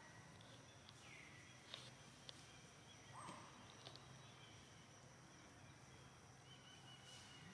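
Faint outdoor ambience: two short calls falling in pitch, about a second and about three seconds in, over a steady thin high tone, with a few small clicks.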